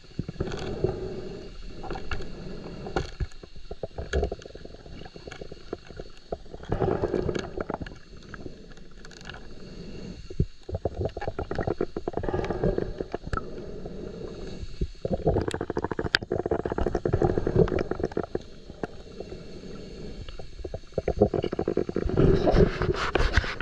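Muffled underwater rumbling and crackling picked up by a submerged camera as water moves around it while a diver swims, coming in surges with many small clicks. It is loudest near the end.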